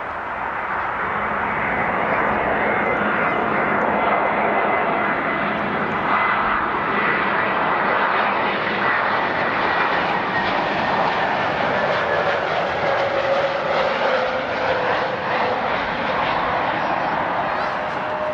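Jet airliner's engines running loud, swelling over the first few seconds and then holding steady, with a thin whine that slowly falls in pitch.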